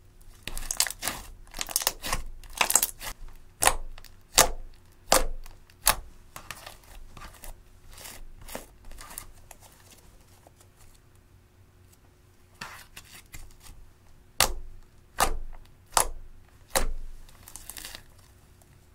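Thick clear slime mixed with eyeshadow being stretched, dropped and pressed by hand, giving sharp crackling pops and clicks as it is worked. A dense run of pops in the first six seconds, a quieter stretch, then another run of pops near the end as the fingers press into the slime.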